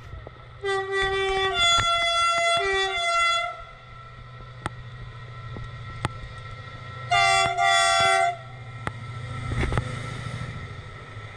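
Stadler diesel freight locomotive sounding its multi-tone horn: a blast of about three seconds that changes chord twice, then a shorter blast about seven seconds in. The engine's low rumble runs underneath and swells as the locomotive passes near the end.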